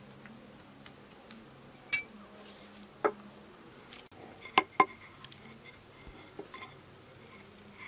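Kitchenware being handled during pastry making: scattered light clicks and knocks, then two sharp metallic clinks in quick succession about halfway through, the loudest sounds.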